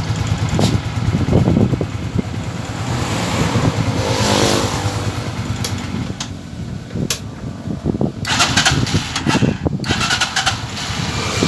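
Euro 150 motorcycle engine running just after its carburettor was cleaned and refitted to cure hard starting, with a rise in revs about four seconds in.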